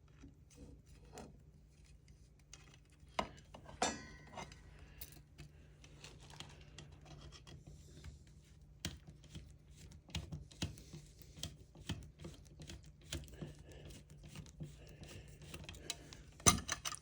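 Light clicking, scraping and rubbing of a screw, washers and metal planter frame parts being handled and screwed together by hand, with a few sharper knocks about three and four seconds in and again near the end.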